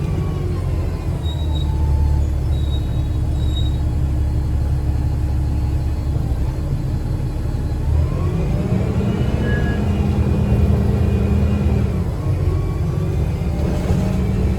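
2009 Gillig BRT 40-foot bus with a Voith transmission, heard under way as a steady low engine and road rumble. A faint whine rises in pitch a little past halfway, as the bus pulls away or accelerates.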